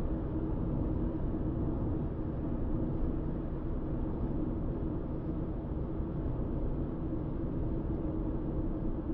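Car cruising at steady speed, heard from inside the cabin: an even, low road and engine rumble with a constant hum.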